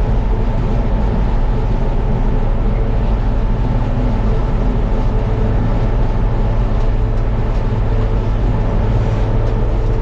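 New Idea Uni Harvester corn picker running steadily while picking standing corn: a constant engine drone with the whir of the picking heads, heard from inside the cab.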